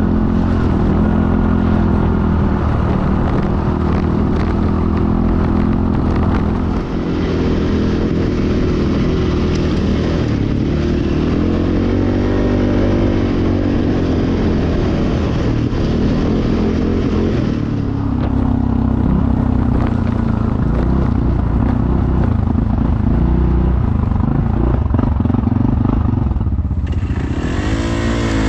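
ATV engine running while riding, its pitch rising and falling with the throttle. The sound changes abruptly near the end.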